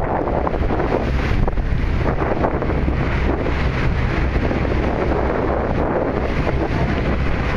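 Wind buffeting the microphone on a moving boat, over the boat's steady engine and water rushing along the hull.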